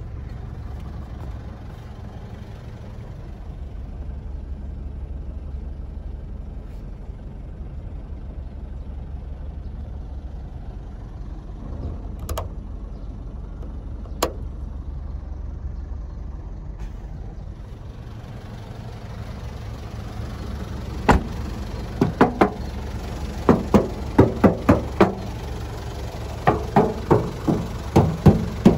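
Mitsubishi Strada Triton's diesel engine idling steadily. Two sharp clicks come about halfway through, and a rapid run of sharp knocks fills the last several seconds.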